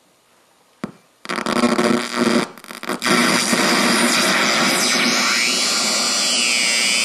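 Homemade CMOS noise synth producing harsh noise: a CD4013 flip-flop samples a fast CD40106 oscillator at each tick of a slow one, fed through a TL071 op-amp bandpass filter and waveshaper. A click comes just under a second in. The noise then starts, stutters and swells for a couple of seconds, and settles into a steady dense hiss, with faint tones gliding up and down in the second half.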